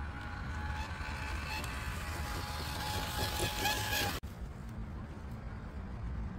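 Radio-controlled Traxxas TRX4 Defender crawler's brushless motor and gears whining steadily as it drives, over a low rumble. About four seconds in the sound cuts off abruptly and a duller, quieter running sound follows.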